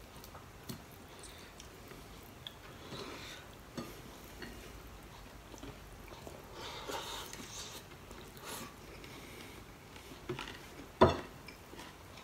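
Close-up chewing of a mouthful of rice and fried dried fish eaten by hand, with soft clicks of fingers and food on a plate. A single sharp knock about eleven seconds in is the loudest sound.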